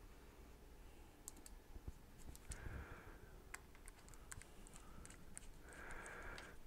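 Faint, quick plastic clicks of small push-buttons being pressed and a plastic casing being handled during reassembly. Two short rubbing scrapes come about two and a half and six seconds in.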